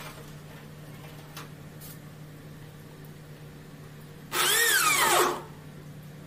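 Electric hand drill run once for about a second at the top screw hole of a door hinge on an aluminium door frame, its pitch rising as it speeds up and then falling as it winds down.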